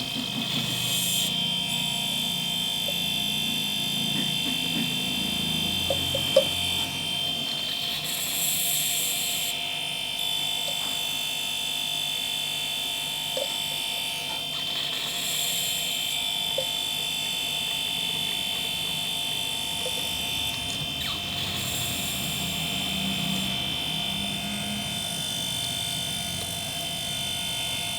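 Refrigerator compressor running steadily with a high whine, during a flush with methyl to push leftover dirt out of its pipe. A single sharp click about six seconds in.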